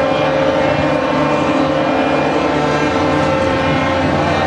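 Several ships' horns sounding together in a long, steady blast, with different pitches overlapping into a chord.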